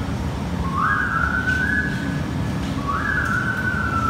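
Workout music with a high, whistle-like melody: a quick upward glide that holds and then steps, repeating about every two seconds over a low rumble.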